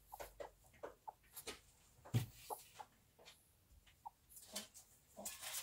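Broody silkie hen sitting on her nest, giving short, soft clucks a few times a second. There is a single thump about two seconds in.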